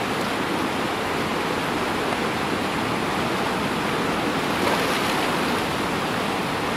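Whitewater rapid on a river, rushing water churning over rocks in a steady, loud, even wash of noise.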